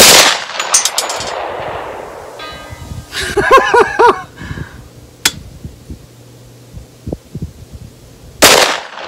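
Two gunshots from a 10mm firearm, one right at the start and one about eight and a half seconds later, each with a long echoing tail. Between them there is a brief warbling pitched sound and a single sharp click.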